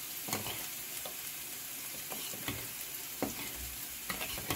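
Chopped onions with crushed ginger and garlic sizzling steadily in oil in a pan, while a steel spoon clinks and scrapes a few times against a small steel bowl as a spice paste is stirred.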